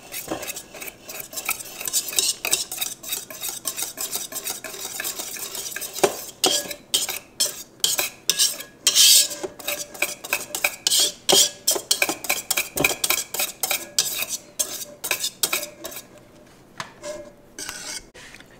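Wire balloon whisk clinking and scraping against the side of a stainless steel pot in quick, irregular strokes, mixing a condensed-milk mixture into whipped cream. It eases off near the end.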